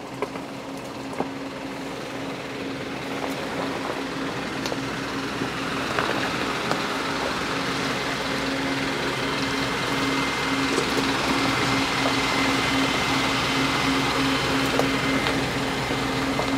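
Isuzu NPS 4x4 truck's diesel engine running at low revs as the truck crawls over a rocky track, a steady hum that grows louder as it comes up to pass close by, with occasional sharp clicks.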